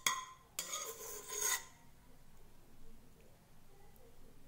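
A spoon clinks against a ceramic plate, then scrapes across it for about a second with a faint ringing.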